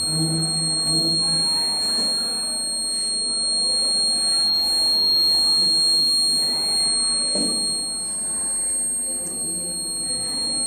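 Electronic buzzer of a school science-project fire alarm model sounding one continuous high-pitched tone, held steady.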